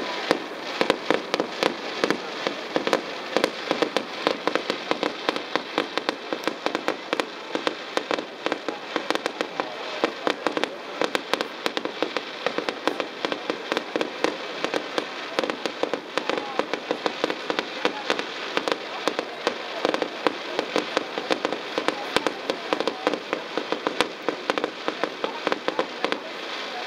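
Aerial fireworks with golden crackle effects: a dense, unbroken crackling of many small pops, with sharper bangs standing out several times a second.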